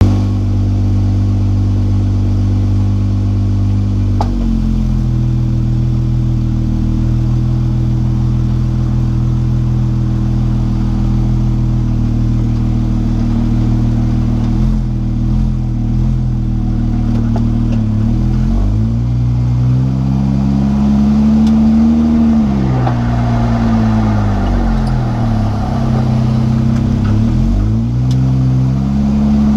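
Jeep Wrangler JK driving, its engine note dipping and climbing back three times in the later part, with a whine from the driveline that the owner suspects comes from the rear differential.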